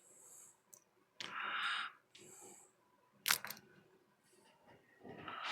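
A loud breathy exhale a little after a second in and another near the end, with one sharp click about three seconds in followed by a couple of faint ticks.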